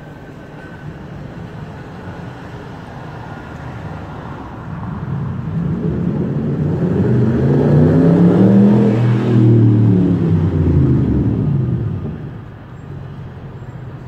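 A motor vehicle drives past: its engine hum builds for several seconds, is loudest about eight to nine seconds in, then fades by about twelve seconds, over a steady background of distant traffic.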